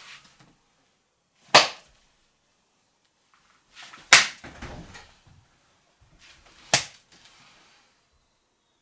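Three loud, sharp impacts about two and a half seconds apart, each dying away quickly; the second is followed by a brief low rumble.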